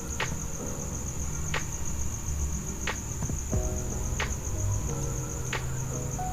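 A cricket trilling steadily in a high, finely pulsed tone. Under it there is a low hum, a few soft musical notes, and a sharp click about every second and a third.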